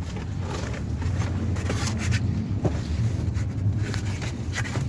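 Steady low rumble with a few scattered light knocks and clicks, as of a phone being handled and carried.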